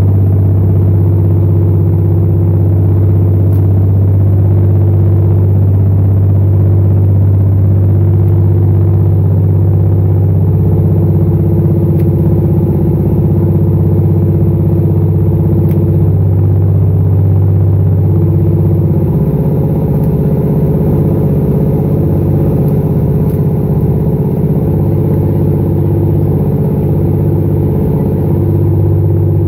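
Boat engine running steadily while the boat is under way, a loud low drone. The deepest part of the hum turns uneven for about ten seconds in the second half.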